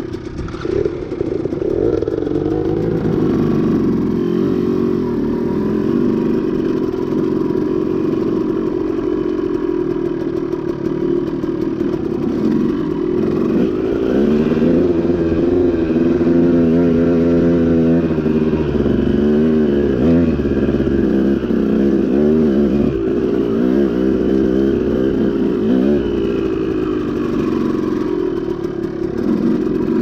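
KTM two-stroke dirt bike engine running under changing throttle while riding a rough dirt trail, its pitch rising and falling as the rider rolls on and off the gas.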